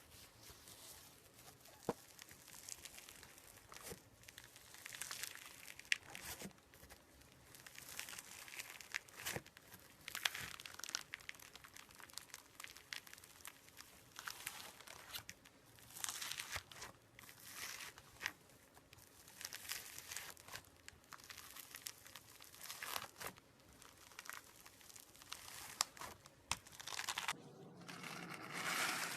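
Hands squeezing and stretching slime, making irregular crackling, popping and sticky tearing sounds, with a few sharper clicks.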